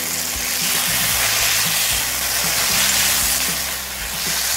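Tomato pieces sizzling in a little hot oil in a kadhai while a steel spatula stirs them. The sizzle dips briefly near the end.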